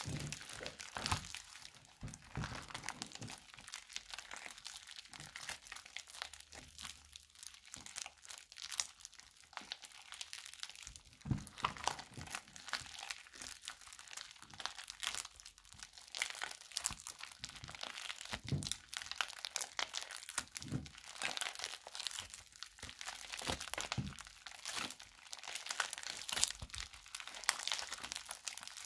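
A large lump of slime mixed with clay being squeezed and kneaded by hand, giving a continuous crackling with many small sharp pops and clicks.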